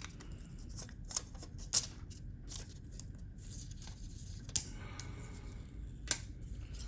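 Scattered small clicks and taps of laptop hardware and tools being handled, the sharpest a little past halfway.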